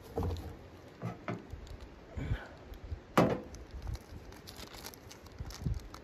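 Scattered knocks and rustles of someone stepping on dry leaves and setting a ceramic mug down on the steel top of a wood stove, with one sharp clack about three seconds in, the loudest.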